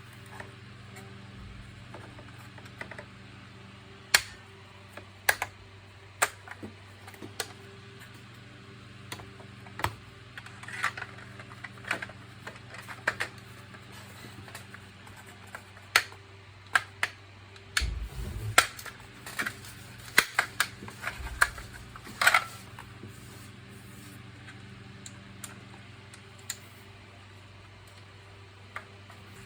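Irregular clicks and taps of hard plastic vacuum cleaner parts being handled and fitted together, over a steady low hum.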